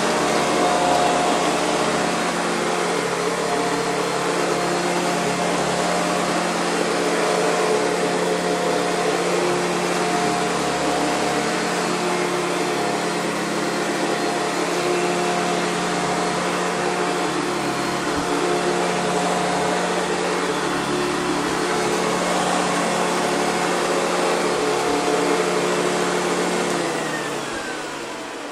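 A Hoover Convertible direct-air upright vacuum cleaner running steadily. Near the end it is switched off and the motor winds down, its pitch falling.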